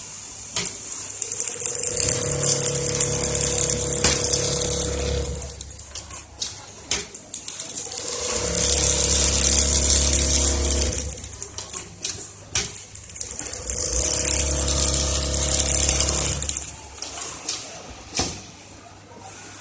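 Servo-driven automatic pattern sewing machine stitching at high speed in three runs of about three to four seconds each, a steady hum with a high hiss. Short clicks and knocks come between the runs.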